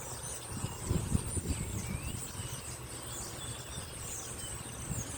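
Outdoor ambience: a steady high-pitched insect drone and scattered short bird chirps over a low rumble.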